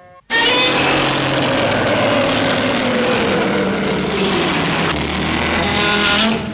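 A sound effect from Shin Godzilla (2016): a loud sound of about six seconds that starts abruptly, holds several pitched tones at once with a slowly falling pitch in the middle, and fades near the end.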